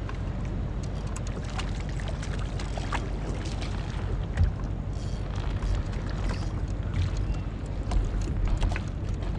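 Slightly choppy water lapping against a small boat's hull, with wind buffeting the microphone as a steady low rumble. Scattered light clicks and splashes sound over it.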